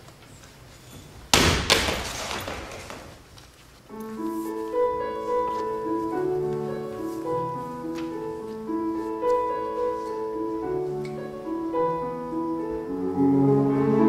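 A single loud crash about a second in, ringing away over a couple of seconds; then slow piano music starts about four seconds in and carries on with sustained notes.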